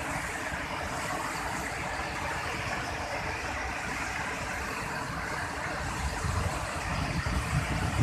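Steady rushing roar of a large waterfall and a swollen, muddy floodwater stream. Irregular low rumbles come in near the end.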